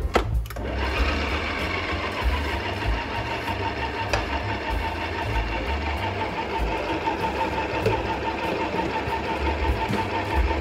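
Electric stand mixer switched on with a click of its speed dial, its motor then running steadily with a whine while the dough hook churns flour and liquid in the steel bowl: the start of kneading a yeast dough.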